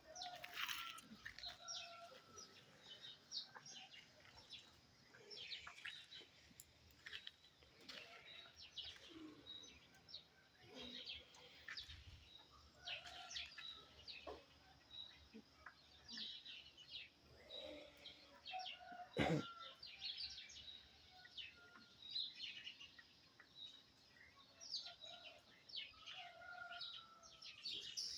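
Birds chirping and calling, many short chirps with a high note repeated about once a second. A single sharp knock about nineteen seconds in.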